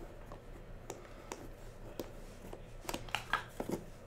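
Light clicks and taps of hands handling an aluminium briefcase and its contents, scattered at first and bunching into a quick run of sharper clicks about three seconds in.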